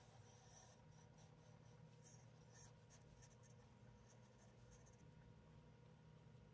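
Very faint rubbing of a cloth wiping finish onto a turned wooden piece, a series of soft scratchy strokes from about a second in until about five seconds in, then only faint room hum.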